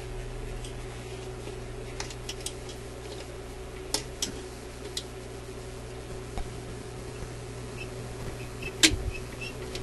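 Scattered small metallic clicks and ticks as pliers reach down beside a record player's turntable spindle into the main bearing, with the loudest click near the end. A steady low hum runs underneath.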